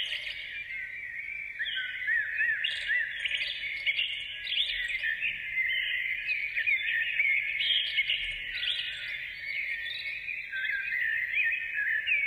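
Many birds chirping and twittering at once, a dense unbroken chatter of short rising and falling calls.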